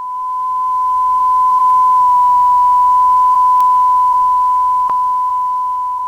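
A single steady electronic beep tone at about 1 kHz, like a test tone, held without a break; it swells up over the first couple of seconds and slowly fades toward the end. Two faint clicks sound over it.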